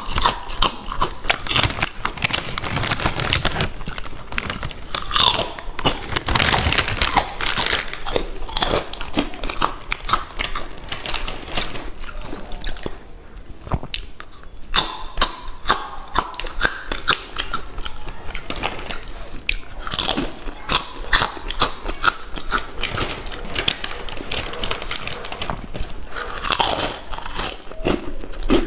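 Close-up eating sounds of a person biting and chewing crunchy Balaji potato chips: dense, irregular crunching, with a brief quieter lull about halfway through.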